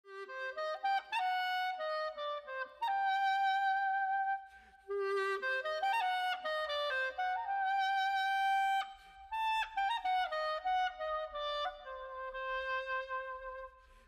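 Clarinet playing a lively traditional Jewish dance melody in the klezmer style, one line of quick stepping notes with two short breaks between phrases.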